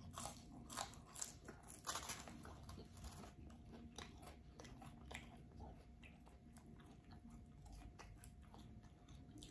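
Faint close-up chewing of a mouthful of crunchy fried food, with wet crunches and clicks. The crunching is heaviest in the first couple of seconds and thins out toward the end.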